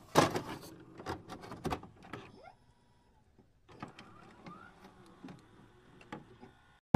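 Glitch-style electronic intro sound effects: a run of irregular clicks and crackles, densest in the first two seconds. After a short pause come sparser clicks and a few short rising chirps.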